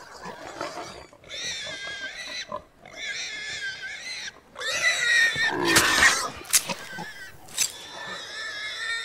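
Mortally wounded horses crying in distress: a series of high-pitched squeals, each about a second long, four or five in all, with a few sharp knocks around the middle.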